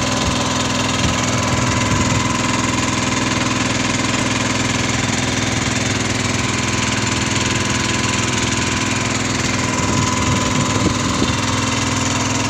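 Engine running steadily at a constant speed, with an even, unchanging hum.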